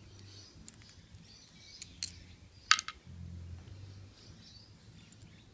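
Small metallic clicks and taps of padlock parts being handled as the lock is taken apart, with one sharp click a little under three seconds in, the loudest.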